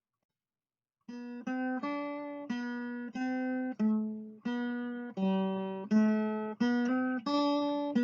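Acoustic guitar music: a slow melody of single plucked notes, about a dozen, each ringing and fading, starting about a second in.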